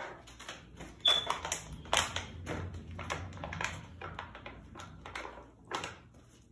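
Irregular clicks and taps of small hard objects being handled, the sharpest about one and two seconds in, with a brief high ping about a second in.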